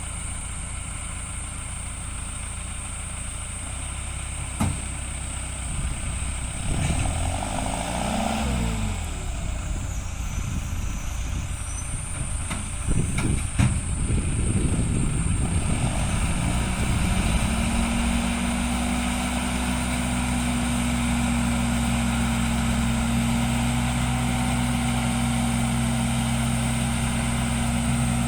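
John Deere tractor's diesel engine running, with a few sharp knocks of machinery. Partway through, a steady higher hum sets in and holds.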